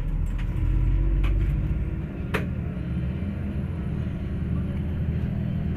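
MAZ-203 city bus heard from inside the cabin while under way: a steady engine and road rumble, the engine pitch rising over the first second or so. A single sharp knock a little over two seconds in.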